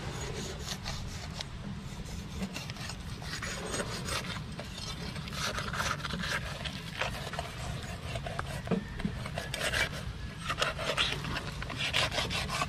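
Large knife sawing through a triggerfish's tough skin and flesh while filleting it on a wooden board: repeated rasping scrapes, busier in the second half.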